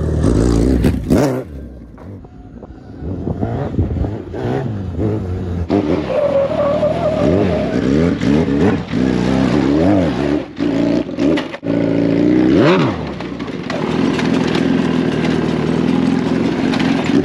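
Motorcycle engines, a Suzuki Hayabusa and a dirt bike, revving up and down at low speed while rock crawling. It is quieter for a couple of seconds near the start, then the revs rise and fall again and again.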